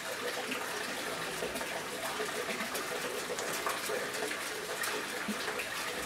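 Steady running, splashing water, with a few faint clicks scattered through it.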